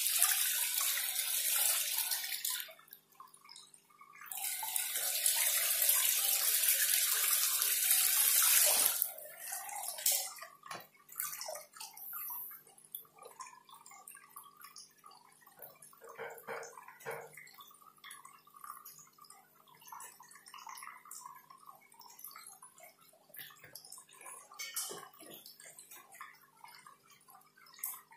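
Water from a homemade motor-driven pond fountain spraying out in a wide sheet and splashing onto the pond surface with a steady hiss. The spray drops out for about a second and a half near the start, comes back, then stops about nine seconds in. After that only quieter intermittent trickling and dripping remain.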